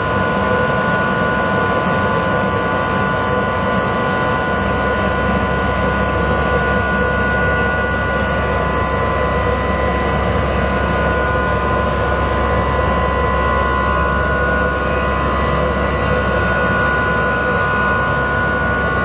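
Kimla CNC cutting plotter running while cutting and creasing leather: a steady mechanical whine with several held tones over a constant rushing noise.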